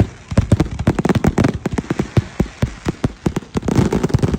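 Fireworks crackling: a dense, irregular run of sharp pops and cracks, several a second, some louder bangs among them.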